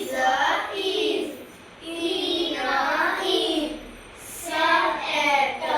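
A child's voice singing a phonics song in short phrases, each about a second long, with brief pauses between them.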